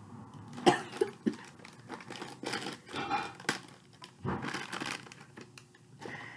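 Foil blind-bag packet crinkling and tearing as it is pulled open by hand: irregular rustling broken by several sharp crackles.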